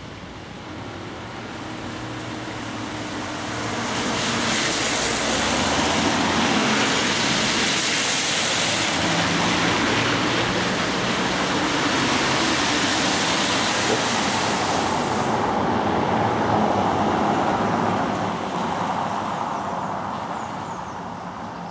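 Road traffic on a wet road: a hiss of tyres on wet asphalt with engine noise underneath, swelling a few seconds in, holding loud, then fading away near the end.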